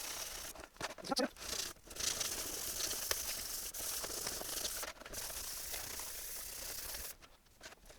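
Scrubbing surface rust off the corroded metal RF shield of an Atari 65XE computer: a steady, hissing scrape with short breaks about two and five seconds in, stopping about seven seconds in.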